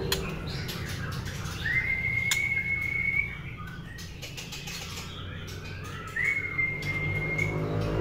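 Young white-rumped shama giving two long whistled notes about four seconds apart, each rising briefly and then held level, with a few light clicks.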